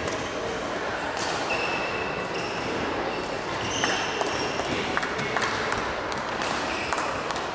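Badminton hall sounds: sneakers giving several short, high squeaks on the court floor, sharp clicks of rackets striking a shuttlecock, and a steady hall hubbub.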